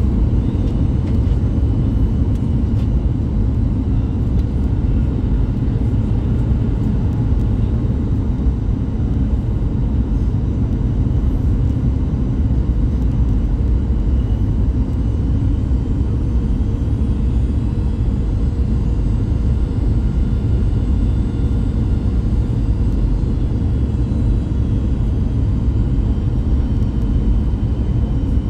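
Steady cabin noise of a Boeing 737 MAX 8 heard from a window seat beside the engine: a constant deep rumble of the CFM LEAP-1B turbofans and airflow, with a faint high whine above it, as the jet descends toward landing.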